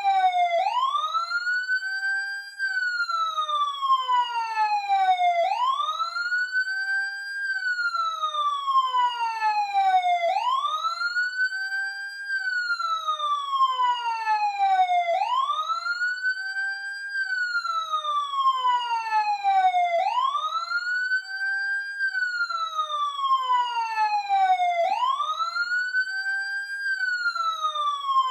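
Emergency-vehicle siren sounding a slow wail. Each cycle rises quickly in pitch and then slides slowly back down, repeating about every five seconds.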